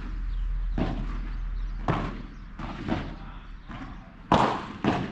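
Padel rally: the ball knocked back and forth off solid paddles and bouncing on the court, about six sharp hits at an uneven pace, the loudest about four seconds in.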